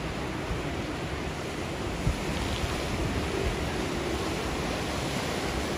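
Ocean surf washing steadily onto a sandy beach, with wind buffeting the microphone and a short thump about two seconds in.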